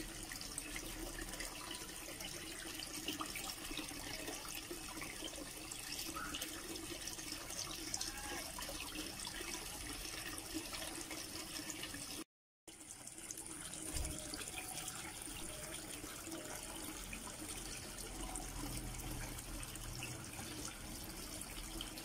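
Steady running, trickling water of a home aquarium, with a brief dropout about twelve seconds in and a single low thump a little after.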